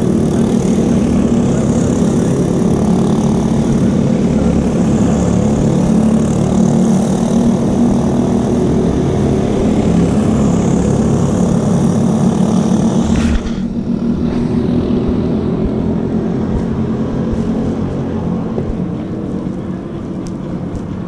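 Briggs & Stratton LO206 single-cylinder four-stroke kart engine running at a steady low speed, then shut off abruptly about thirteen seconds in. A quieter engine hum remains and slowly fades.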